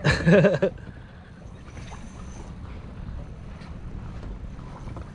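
A short shouted exclamation right at the start, then a steady low rumble of wind on the microphone.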